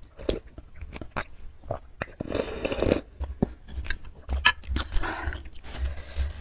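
Close-miked eating sounds of spicy noodle soup drunk straight from the bowl: wet mouth clicks and swallows, with a longer slurp a little over two seconds in, then more mouth clicks as she chews.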